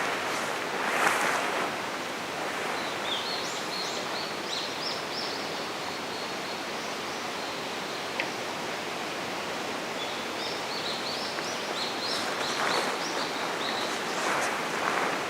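Outdoor forest ambience: a steady rushing hiss, with two runs of high, quickly repeated chirping notes, a few seconds in and again about ten seconds in.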